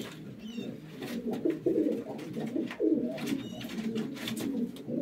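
Domestic pigeons cooing continuously in a loft, with a few short high chirps about half a second in and again past the three-second mark, and faint clicks and rustles.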